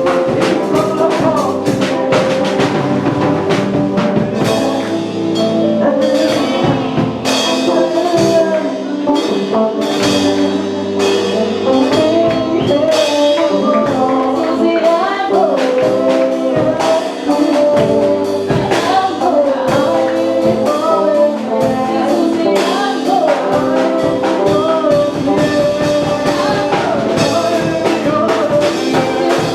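Gospel band music: singing over brass and drum kit, steady beat throughout.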